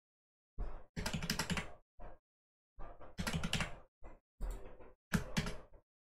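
Computer keyboard typing: short runs of keystrokes in several separate bursts with brief pauses between them, as numbers are entered into fields.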